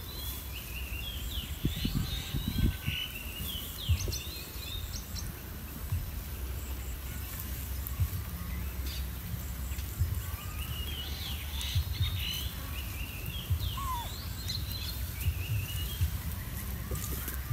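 Small birds chirping in two bouts of quick, gliding chirps, over a steady low rumble of outdoor background noise.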